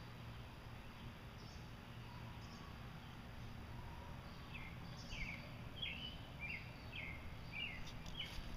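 A small bird chirping outdoors, a run of short high chirps about twice a second starting about halfway through, over a faint steady low hum.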